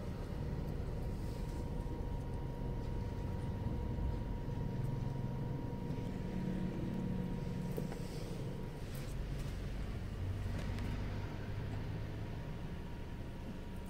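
Steady low rumble of a stopped car idling, heard inside the cabin. A faint thin steady tone runs along with it and stops about nine seconds in, and there are a few light clicks near the middle.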